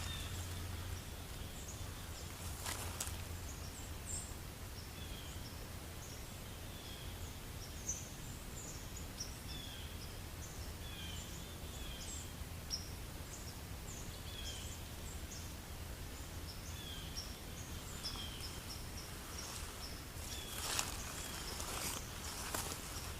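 Scattered short, high bird chirps over a steady outdoor background hiss, with a brief rustle about three seconds in and another near the end.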